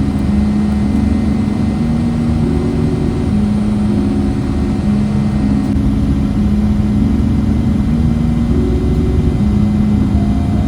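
Background music: a slow melody of held low notes over a steady low hum.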